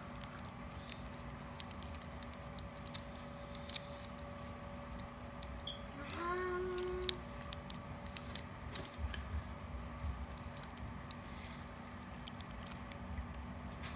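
Lego Technic pieces being handled and pressed together: scattered small plastic clicks and taps. A short pitched hum sounds about six seconds in.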